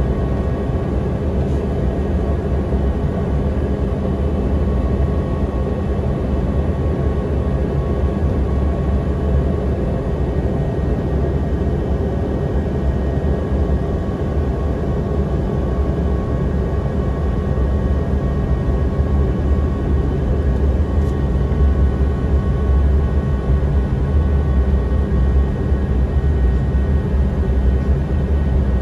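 Steady cabin noise inside a Bombardier CRJ-700 regional jet in descent toward landing: a constant rush of airflow over a deep rumble, with a faint steady whine.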